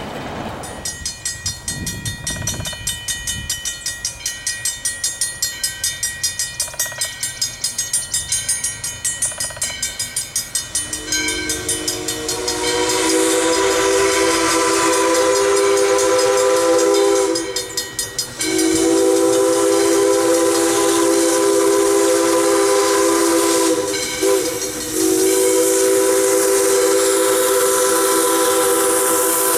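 A steam locomotive's chime whistle, on ALCo-built 2-8-2 Mikado #40, sounds long, long, short, long: the signal sounded for a grade crossing. Each long blast is a chord of several tones held for five or six seconds. Before it, for about ten seconds, the approaching train makes a quick regular beat of three to four pulses a second.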